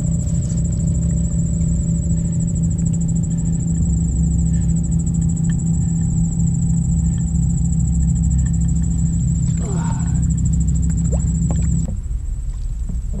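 A steady droning hum with a thin high-pitched whine above it, cutting off suddenly near the end; a brief rising sound breaks through about ten seconds in.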